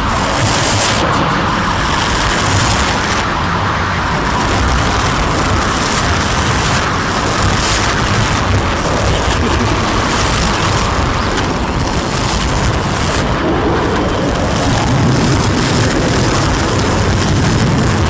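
Loud, dense wall of rumbling noise with no clear pitch or beat from an experimental noise recording, holding steady throughout.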